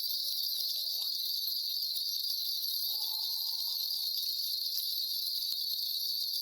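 A steady, high-pitched, insect-like chirring that holds evenly throughout.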